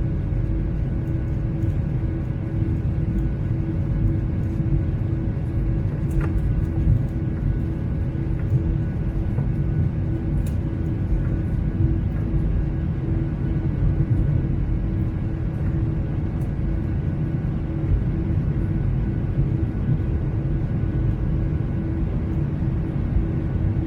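Steady jet airliner cabin noise, a deep rush of engine and airflow with a constant hum over it.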